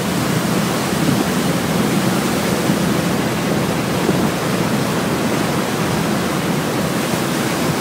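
Steady rushing of water along the side of a moving passenger ferry, mixed with wind on the microphone.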